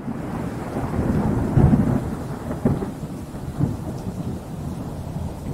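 Rolling thunder with rain, loudest between one and three seconds in with a few sharp cracks, then slowly dying away.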